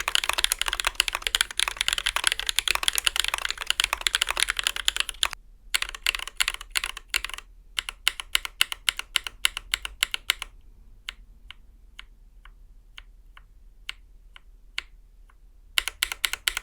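Typing on a TMOv2 50% custom mechanical keyboard with tactile switches: fast, dense runs of keystrokes, then about two single key presses a second from about ten seconds in, and fast typing again near the end.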